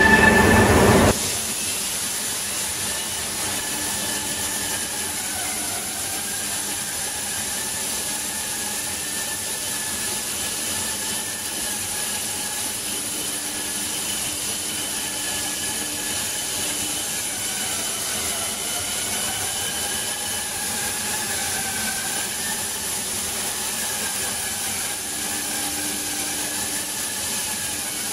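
Cutting torch of a CNC plasma and oxy-fuel cutting machine burning through steel plate: a steady hiss with faint, slowly wavering whistling tones. A louder sound cuts off about a second in.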